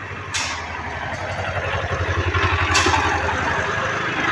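Vehicle engine running with road noise, growing louder over a few seconds. Two sharp knocks come about two and a half seconds apart.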